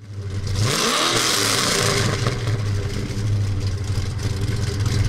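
A car engine revs once, its pitch rising and falling under a rushing hiss about a second in, then runs at a steady, lumpy idle. The sound starts abruptly.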